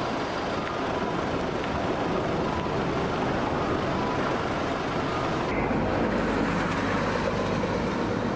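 City street traffic: cars passing along a road beside a tram line. About halfway through the sound changes abruptly to a steady low engine hum as a bus passes close by.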